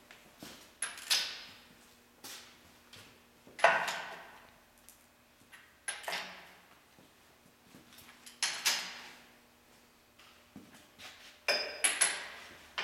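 Hand wrench work on steel bracket bolts: a sharp metallic clank about every two to three seconds, each fading over about a second, with lighter clicks in between, as the bolts are snugged up.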